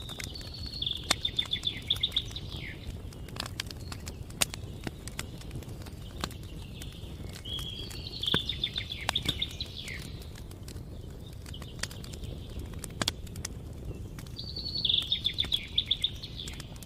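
Wood fire burning with a steady low rumble and scattered sharp crackles and pops, while a small songbird sings a short trilled phrase of rapid high notes three times, about every seven seconds.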